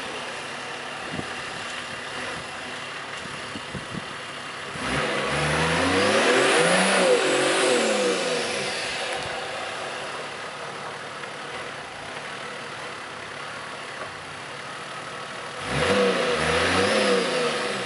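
Toyota Land Cruiser 70 engine working off-road, running steadily and revved up twice: a long swell about five seconds in that rises and falls in pitch, and a shorter one near the end.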